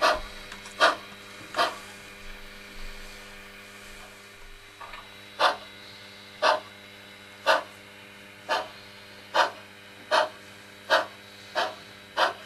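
Sound-decoder steam exhaust chuffs of an HO-scale Pennsylvania Railroad 0-6-0 switcher, played through the model's small speaker over a steady hum. Three chuffs come under a second apart, they stop for about three seconds, then resume and quicken as the locomotive pulls away.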